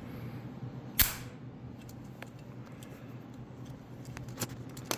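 Two VIM Magrails magnetic socket rails snapping together under their strong magnets, one loud sharp clack about a second in, followed by a few faint ticks.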